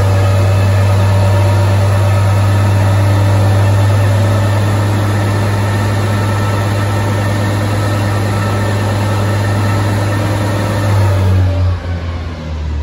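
BMW 135i's turbocharged 3.0-litre inline-six running at a steady speed on a chassis dyno, the drive wheels turning the rollers. Near the end the steady note breaks up and falls away as the dyno run is stopped.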